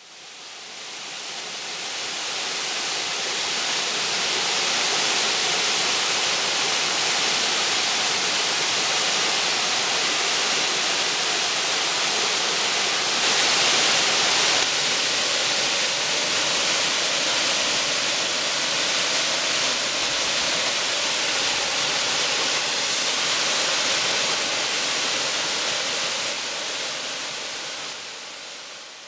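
Gillis Brook Falls, a small waterfall cascading over a rock ledge into a shallow pool: steady rushing, splashing water. It fades in at the start and fades out at the end.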